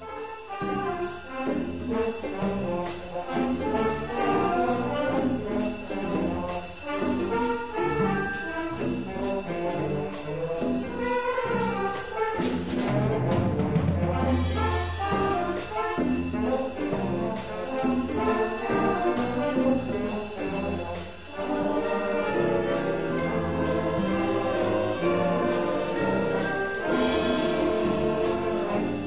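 School jazz band music with horns over a rhythm section, keeping a steady beat.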